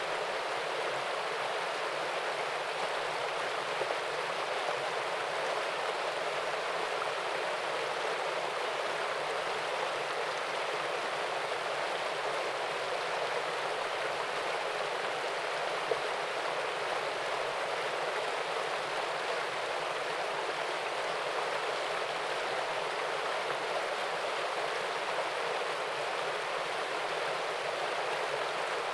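Small waterfall and stream: water running and splashing over rocks in a steady, even rush.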